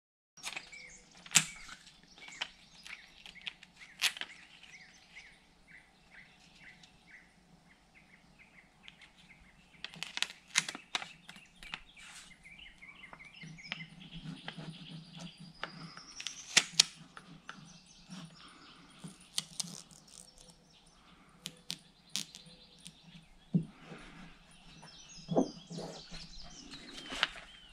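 Hands peeling a vinyl registration decal off its backing and pressing it onto a boat hull with a plastic squeegee card: scattered clicks and taps, rubbing, and a rising squeak about halfway through.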